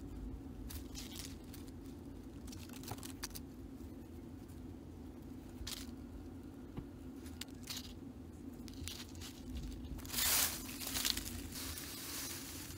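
Dry leaves, grass and twigs rustling and crackling as a grass-and-stick snare is handled on the forest floor, with louder crunching of leaf litter near the end. A steady low hum runs underneath.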